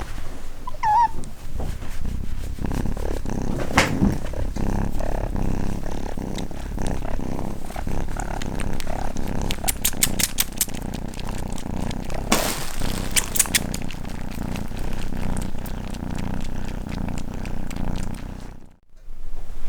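Cat purring steadily and close, with a short high cry about a second in and a few scattered clicks over the purr.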